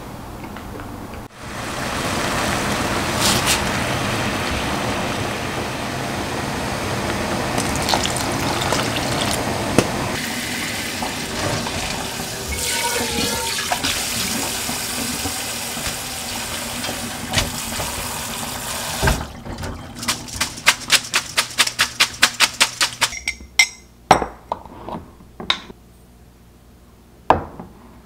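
Tap water running onto cooked noodles in a wire-mesh strainer in the sink as they are rinsed, a steady rush. About two-thirds of the way through the water stops and a quick run of evenly spaced taps follows, then a few scattered clicks.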